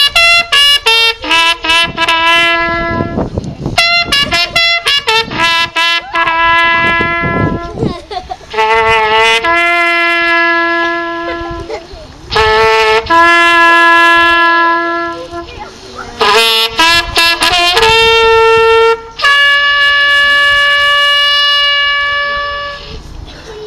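A wind instrument playing a slow air: long held notes broken by quick, fluttering ornamental flourishes.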